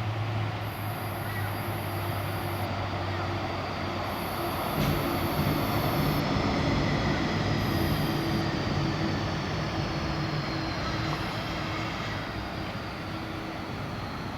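Gold Coast light rail tram passing on the viaduct. Its electric running gear hums and faint high tones glide slowly down in pitch. The sound grows louder about five seconds in and eases off near the end.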